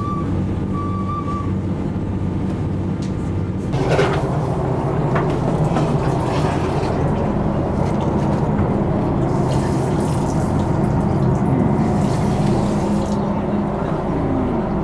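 Cruise boat's engine running steadily under a rush of water along the hull. About four seconds in, the water rush turns suddenly louder and stays so.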